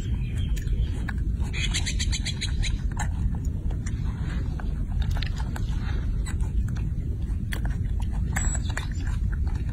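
A baby monkey chewing grapes, with many short wet smacks and clicks, including a quick run of them about two seconds in, over a steady low wind rumble.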